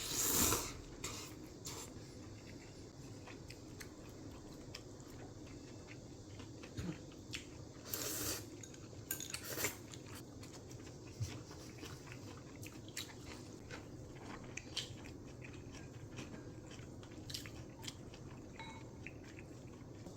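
Eating at the table: chewing, with scattered clicks of cutlery on dishes and a few louder clatters.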